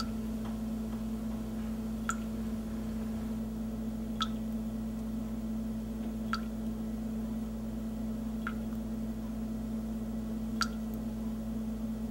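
Water dripping at a slow, even pace, one drop about every two seconds, over a steady low hum.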